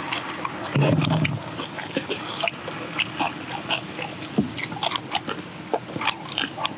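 Close-up eating sounds: chewing and smacking, with irregular clicks as metal kitchen scissors snip through cabbage kimchi and utensils touch the tray. Near the end, sipping from a steel bowl.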